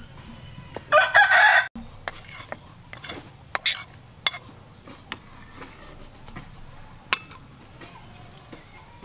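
A rooster crows once, briefly, about a second in, and is cut off suddenly. After it comes a string of light clinks and scrapes: a metal spoon against a metal plate and a metal pot as chopped chilies are scraped into a sauce and stirred.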